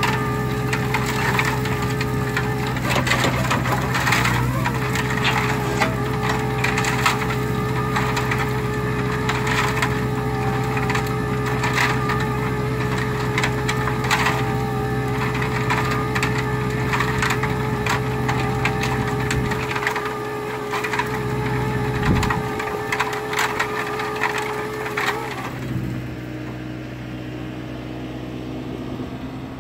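Socomec hydraulic rotating screening bucket turning its mesh drum on a Kubota mini digger, wood chips tumbling and rattling inside with a fast irregular clicking over a steady hydraulic whine and engine hum. About 25 seconds in the rattling stops and only the quieter engine and hydraulic hum carry on.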